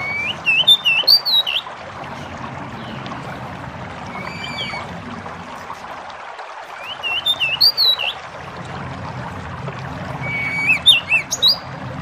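Pied bushchat (jidengan, decu) singing four short whistled phrases a few seconds apart, each rising and falling, over a steady background of running water.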